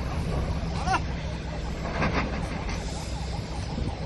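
Steady low rumble of a large ship rolling down the slipway on rubber marine airbags during launch. A short rising whistle-like tone comes about a second in, and a brief louder noisy burst about two seconds in.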